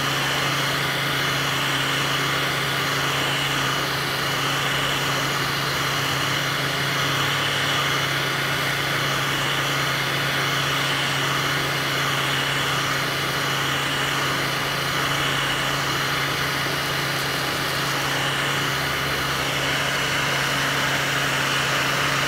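Industrial heat gun running steadily, its fan motor humming under a constant rush of blown hot air.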